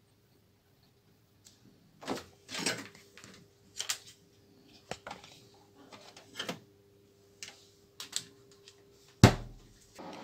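Scattered clicks, knocks and rustling as a hand works inside a freezer, handling a thermometer's sensor probe and its cable, ending in a heavier thump about nine seconds in. A faint steady hum lies underneath.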